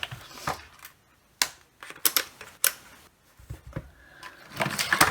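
Irregular clicks and knocks of a multimeter and its test leads being picked up and set up on a workbench, a handful of separate taps with a busier cluster near the end.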